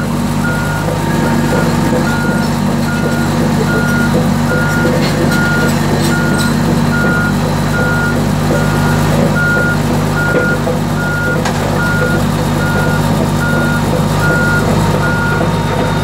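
Komatsu D85EX-15 bulldozer's diesel engine running steadily, heard from the cab. Over it, a single-tone warning alarm beeps evenly, a little more than once a second, like a reversing alarm.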